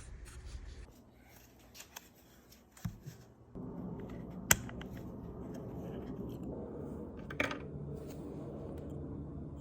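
Sharp clicks and light handling noise from a car's plastic power window switch being worked apart by hand. The loudest click comes about four and a half seconds in and another about seven and a half seconds in. A steady low hum sets in about three and a half seconds in.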